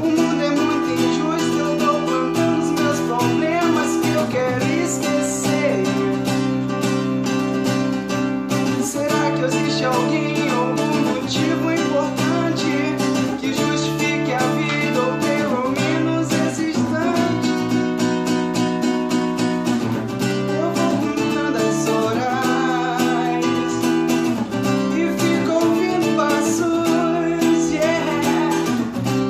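Acoustic guitar strummed in a steady rhythm, with the chords changing every few seconds. A man's voice sings along in places.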